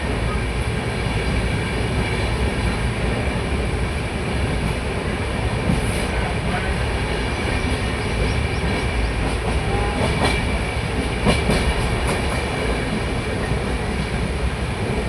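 Train running along the track: a steady rumble with a few sharp clicks about ten to twelve seconds in.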